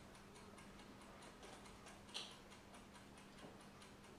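Faint, steady ticking at about four ticks a second, like a clock, over a low steady hum; one light click about two seconds in.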